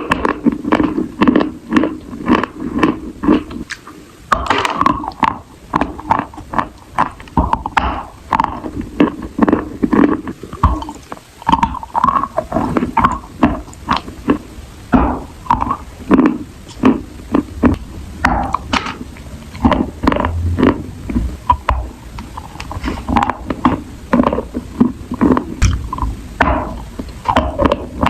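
Close-up eating sounds: continuous wet chewing, crunching and smacking, with rapid irregular clicks and short crackly bursts several times a second.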